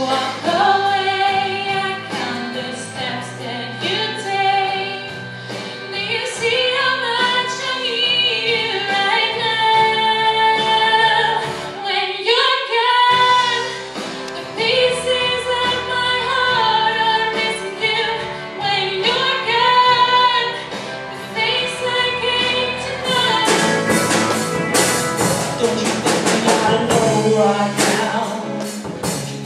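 A woman singing a slow song into a microphone over held low accompaniment notes, with a brief break about halfway. About three quarters of the way through it cuts to a live band: drums and cymbals, electric guitar and a male singer.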